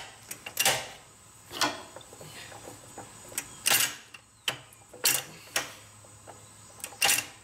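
Irregular metallic clicks and clunks, about ten of them, some with a short ring after: the shift collars and gears of a John Deere 4430 Quad-Range transmission being slid by hand into and out of engagement as the ranges are checked.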